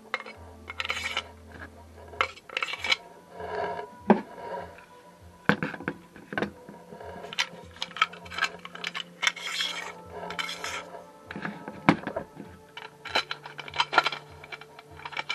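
Clicks, knocks and short scrapes as the aluminium rip fence of a table saw and its plastic clamp parts are handled and slid together. Quiet background music runs underneath.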